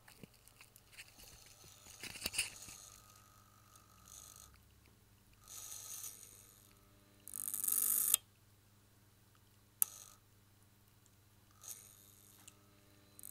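Small relay on a breadboard chattering in short buzzing bursts, several times, with the loudest burst about eight seconds in and a single sharp click near ten seconds. The relay is trying to switch but its coil gets too little drive current: the circuit sits neither fully off nor fully on.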